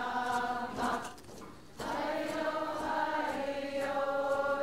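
Women's voices chanting together in long, held notes, with a short break about a second in before the chant resumes.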